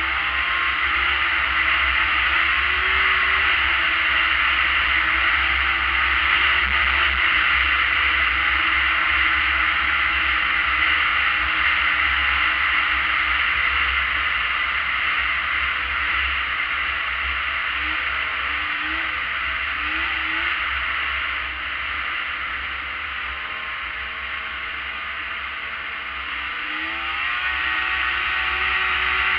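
Arctic Cat ZRT600 three-cylinder two-stroke snowmobile engine running at speed under a steady hiss, its pitch wavering with the throttle. It eases off about two-thirds of the way through, then climbs in pitch and level again near the end.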